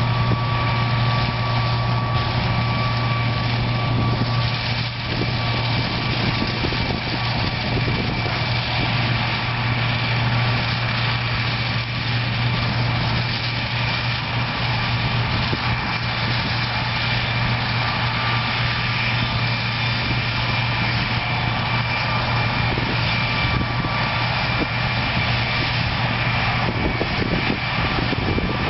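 Cotton harvesting machinery running steadily: a low, even engine drone with a faint high whine over it.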